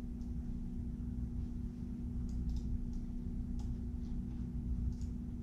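Steady low room hum and rumble, with a few faint, scattered clicks of laptop keyboard keys being typed.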